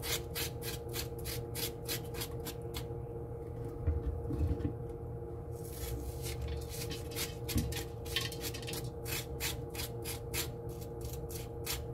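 A spoon scraping the seeds and spongy pith out of a halved bitter melon in quick, rasping strokes, about four a second. The strokes pause about three seconds in and resume a couple of seconds later.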